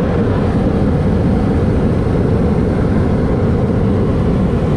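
Hot air balloon propane burner firing: a loud, steady roar that starts abruptly and holds without a break.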